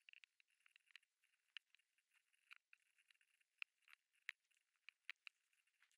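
Near silence broken by faint, scattered ticks and clicks of a small screwdriver turning screws out of the plastic back case of a Jumper T-Pro radio transmitter, about eight ticks in the space of a few seconds.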